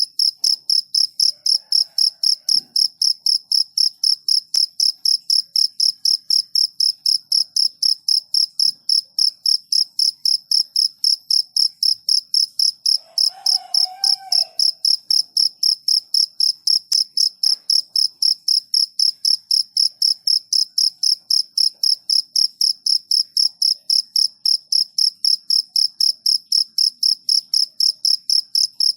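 A cricket chirping in a steady, even rhythm of about three high, clear-toned chirps a second. A faint wavering call comes in briefly about halfway through.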